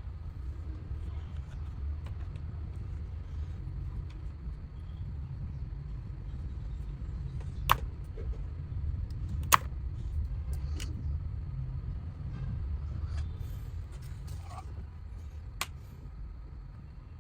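A few sharp clicks and taps of small speaker parts and tools being handled during a teardown, the two loudest about eight and ten seconds in, over a steady low rumble.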